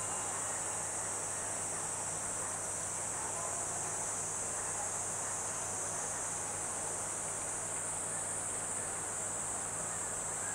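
A steady, unbroken high-pitched chorus of insects singing, over a low hum.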